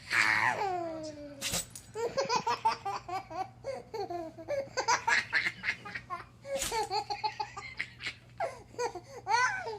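A baby laughing hard in repeated bursts of giggles and belly laughs, opening with a high squeal that falls in pitch. Two brief sharp noises come between the laughs, about one and a half and six and a half seconds in.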